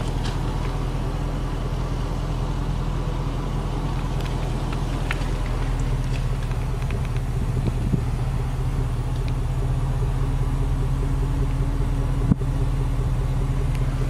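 The Range Rover Sport's 5.0-litre supercharged V8 idling steadily, a low even rumble with a few faint clicks of handling over it.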